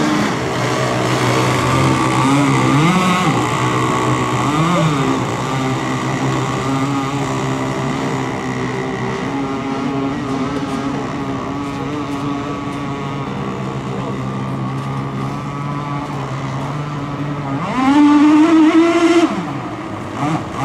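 Several radio-controlled racing boats running at high revs together, a steady drone of overlapping engine whines. One boat passes close near the end, louder, its pitch rising and then falling away.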